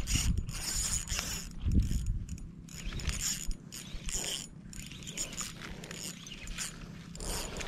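Fishing reel being cranked, its gears whirring and clicking in short uneven strokes as a hooked toman (giant snakehead) is reeled in, with a dull thump about two seconds in.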